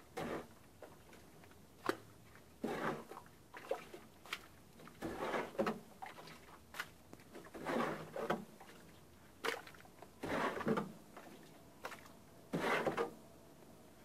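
Runny cement mortar thrown from a trowel onto a damp rendered wall, landing in a series of short wet splats every second or two.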